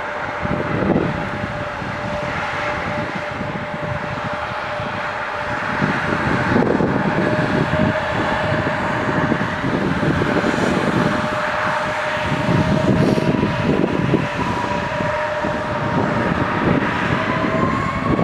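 Jet airliner's turbofan engines running: a steady roar with a two-tone whine, the higher tone rising slightly near the end.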